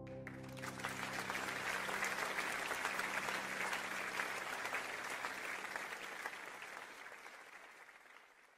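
Audience applauding, coming in over the last held chord of a worship song as it dies away, then fading out near the end.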